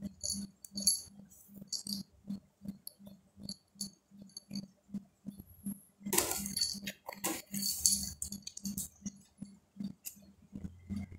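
Light jingling and clicking as a British Shorthair cat moves in a cardboard box, with a louder burst of rustling and jingling about six seconds in and another near eight seconds. Under it runs a steady low pulse about three times a second.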